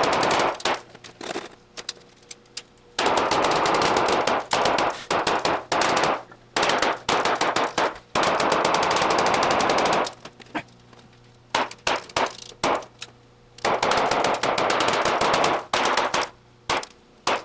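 Strings of .22 LR pistol shots from a Ruger Mark IV Competition, fired in quick succession. Dense runs of shots blur into solid stretches of a couple of seconds each, with scattered single cracks in the short pauses between runs.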